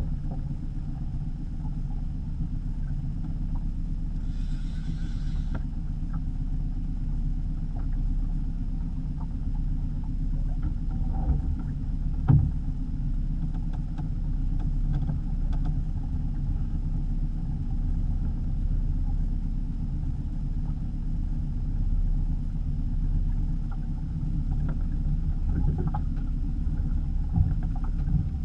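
Small open fishing boat under way with several rods set out: a steady low rumble with no break, and a single soft knock about twelve seconds in.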